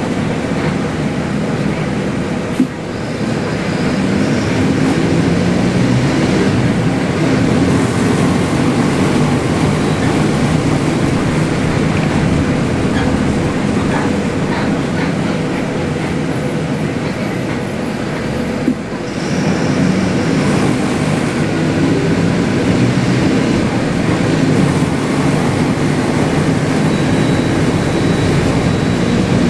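Mercedes-Benz OF-1721L Euro 5 city bus's diesel engine running loud, a steady low drone over road noise. The sound dips briefly twice, about three seconds in and again about nineteen seconds in, then builds back up.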